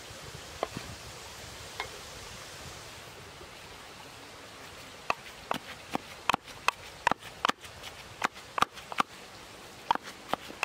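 Wooden pestle pounding minced pork in a wooden mortar: sharp woody knocks, irregular, about two to three a second, starting about five seconds in. Before that, a couple of single cleaver knocks on a wooden chopping board over a steady hiss.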